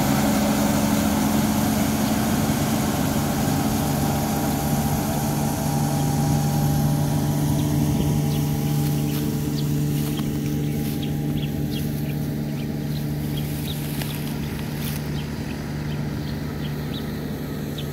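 Tractor-driven wheat straw chopper running steadily: a constant low engine drone under the hiss of straw being chopped and blown, the whole sound slowly growing quieter, with the hiss fading from about halfway. Faint short chirps come through in the second half.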